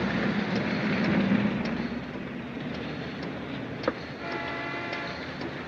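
A car driving on a wet street: a steady rush of engine and road noise, heavier in the first two seconds, with a sharp knock near four seconds and a horn sounding for about a second just after.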